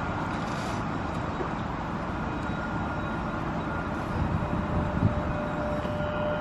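Metal singing bowl rubbed around its rim with a wooden striker, giving a steady high ringing tone; a lower ringing tone swells in near the end. A steady low outdoor rumble lies underneath.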